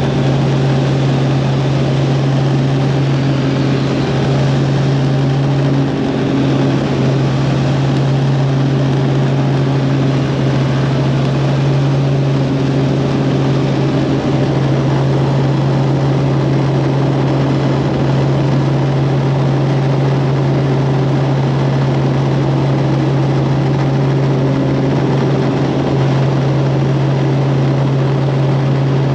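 Tour helicopter in flight: the steady, loud drone of rotor and engine, a strong low hum with fainter overtones over a dense rushing noise.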